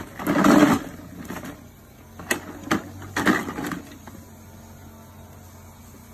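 Hard plastic wheels of a child's ride-on toy quad bike rolling over a rough concrete path, in two short rumbling spurts with a few sharp clicks between them.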